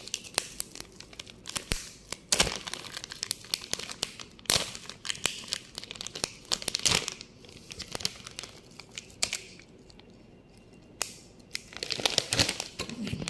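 Plastic packet of grated cheese crinkling and rustling as it is handled, in short irregular crackles, with a quieter lull about two-thirds of the way through.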